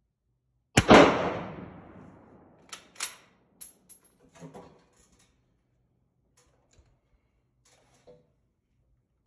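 A single shot from a 1940 K98 Mauser bolt-action rifle in 7.92×57mm, very loud, its report ringing on for over a second under the covered firing line. It is followed by a run of sharp metallic clicks from the bolt being worked, ejecting the spent case and chambering the next round, and a couple of faint clicks near the end.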